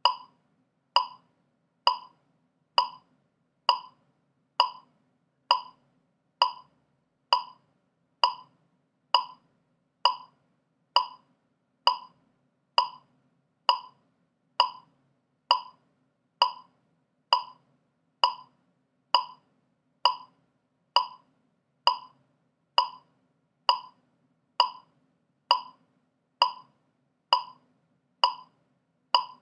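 Metronome click track ticking steadily at 66 beats per minute, just under one click a second, every click the same with no accented beat.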